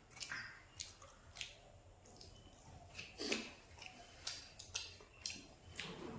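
Chewing crispy fried pig tail: wet, crunchy clicks and smacks at an irregular pace, about one or two a second.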